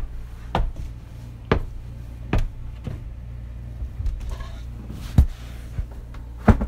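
Footsteps thudding up steep wooden attic stairs, a knock every half second to second, with two louder knocks near the end, over a steady low hum.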